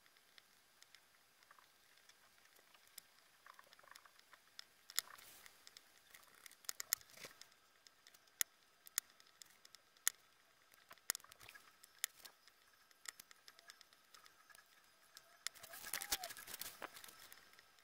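Faint, scattered small clicks and taps of a diamond-painting drill pen picking resin drills from a plastic tray and pressing them onto the canvas. A short denser rustling stretch comes near the end.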